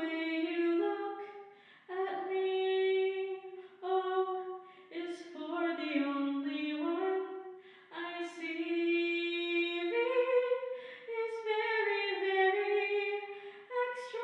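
A woman singing a slow melody alone, in long held notes that slide from one pitch to the next, with short breaths between phrases.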